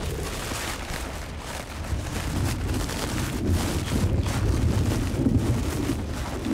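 Wind buffeting the microphone: a steady rushing noise with a low rumble.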